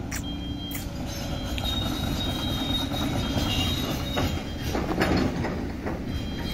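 Tracked hydraulic excavator travelling over a bed of coarse crushed rock: its diesel engine runs steadily, with a few clanks near the start and high-pitched squeals that come and go from the steel tracks.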